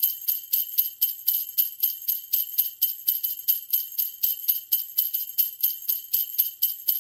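Sleigh bells shaken in a steady, even rhythm of about three to four shakes a second, a bright jingling with no deeper sound under it.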